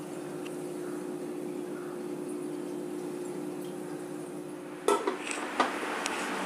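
A steady low hum, then from about five seconds in a few sharp clanks and clinks of steel cookware being handled around a pressure cooker.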